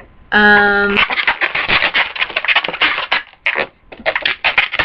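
Twisted latex 260 modelling balloons being pulled and untwisted. There is one loud, steady squeak a moment after the start, then a run of fast squeaky rubbing and crackling of latex against latex.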